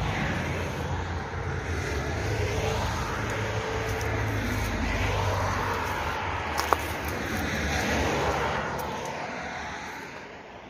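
Cars passing on the road, a rush of tyre and engine noise that swells and then fades near the end. One sharp click comes about two-thirds of the way through.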